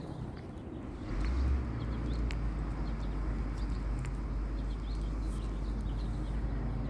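A dog in a bout of reverse sneezing: repeated forceful snorting inhalations through the nose, which the owner describes as nonstop and as if she can't breathe. A steady low rumble sets in about a second in.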